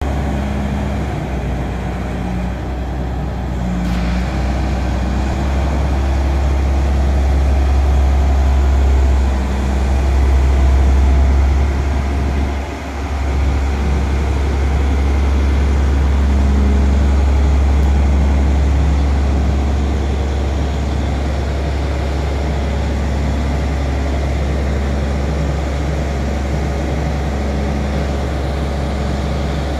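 Diesel engine of a Luna AT 80/41 all-terrain crane running steadily while the hydraulic boom is worked. It builds up a few seconds in, dips briefly about halfway through, and then holds steady.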